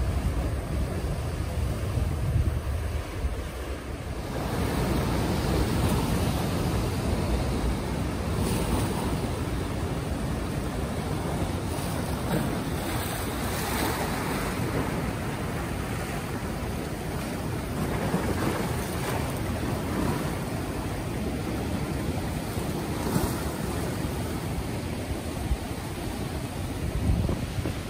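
Ocean surf breaking and washing over black lava rocks: a continuous wash that swells several times, with wind buffeting the microphone as a low rumble.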